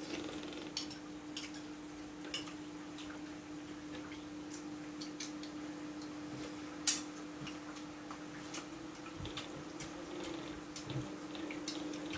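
Spoons clinking and scraping against metal and glass bowls during a meal: scattered light clicks at irregular intervals, with one louder clink about seven seconds in, over a steady low hum.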